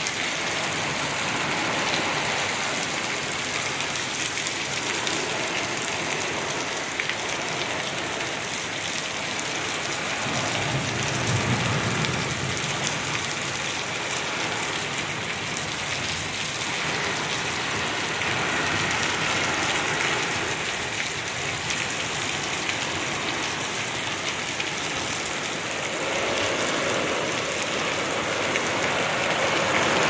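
Torrential rain pouring down hard and steadily, a dense unbroken hiss, with a brief low rumble about eleven seconds in.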